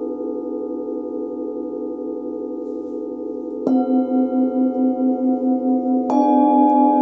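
Hand-forged singing bowls ringing with a sustained, wavering hum. About halfway through, one bowl is struck with a felt mallet and gives a low pulsing tone. Near the end, a second, slightly higher-pitched bowl is struck.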